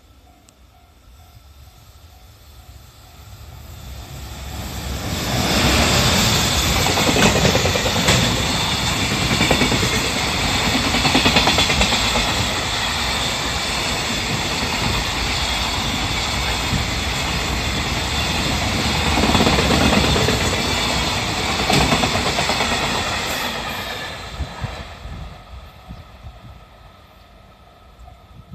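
EF210 electric locomotive hauling a long container freight train past at speed. It builds up from about four seconds in, then the wheels rumble and clatter over the rails for about twenty seconds as the wagons go by, and it fades away near the end.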